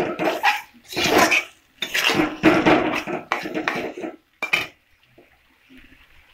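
Metal spatula scraping and knocking against a steel kadai while stirring boiled peas and potatoes in thick masala, in strokes about once a second, stopping after a short sharp clack about four and a half seconds in.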